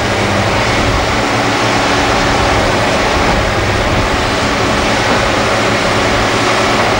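Liebherr R962 Litronic hydraulic excavator's diesel engine running steadily and loudly as the machine works, swinging its bucket over a dump truck.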